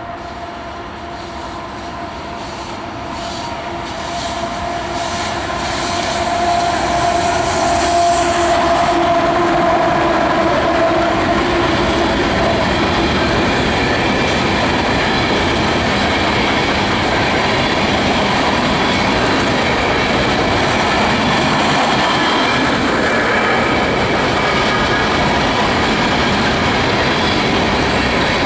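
Union Pacific freight locomotives approaching and passing with a rising engine hum that peaks about eight seconds in. Then comes the steady rolling rumble and clatter of a long string of coal hopper cars going by, with some wheel squeal.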